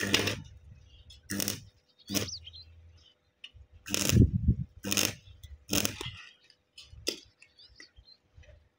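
Metalwork on a steel bar gate: about seven short, separate knocks and scrapes of metal on metal, a few seconds apart, over a faint steady hum.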